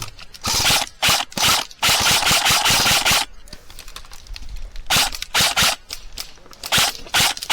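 Airsoft electric gun firing: a few short bursts, then a longer burst of rapid shots lasting over a second, then a few short bursts and single shots near the end, each shot a sharp mechanical clack from the gun's motor-driven gearbox.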